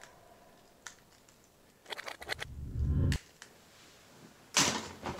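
Hard plastic action figures and toy parts clicking and clattering as they are handled and tossed onto a pile of toys: a single click, a cluster of clicks about two seconds in, and a louder clatter near the end.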